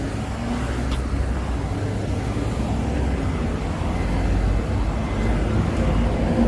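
Street traffic: cars running by with a steady low engine rumble that grows a little louder near the end.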